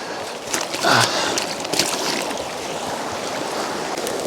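A mountain river rushing steadily, with a few light clicks over it.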